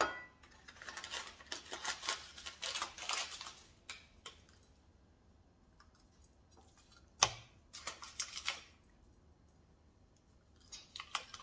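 Rosemary being sprinkled over a raw steak as seasoning: three bursts of rapid light clicking, with one sharper click about seven seconds in.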